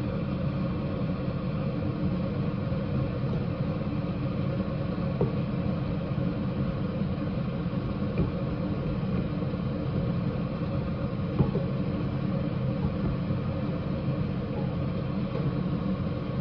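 A steady low hum and rumble, with a few faint knocks of a wooden spatula against a stainless steel pot as fried rice is stirred.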